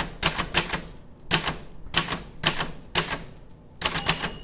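Typewriter keys being struck in quick clusters of sharp clacks, followed near the end by a ring like the typewriter's bell.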